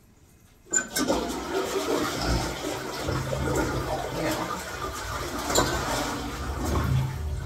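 Water running, starting suddenly under a second in and then rushing steadily.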